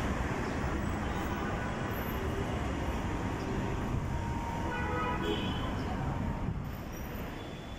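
Steady traffic noise from cars and motorcycles moving along a busy city street.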